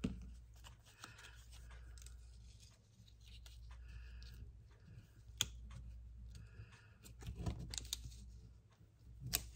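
Faint handling noise of acetate leaves and paper being pressed onto a scrapbook page by hand, with scattered small clicks and crinkles, a sharper click about five seconds in and another near the end.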